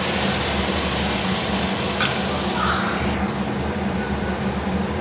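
Curry frying in a hot pan with a steady sizzle, over a low steady hum. There is a light knock about two seconds in, and the high hiss of the sizzle drops away about a second later.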